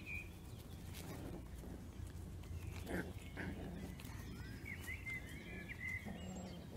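Cavalier King Charles Spaniel puppies giving short, high squeaks and whines: two about three seconds in and a run of them near the end.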